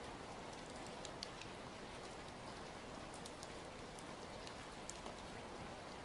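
Steady rain falling: an even hiss with scattered sharp ticks of single drops hitting.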